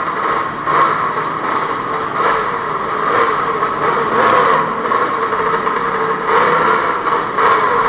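Many small scooter engines, Vespas and Lambrettas, running together at low speed as a pack rides through a ferry's enclosed vehicle deck, with the engine note wavering slightly as riders work their throttles.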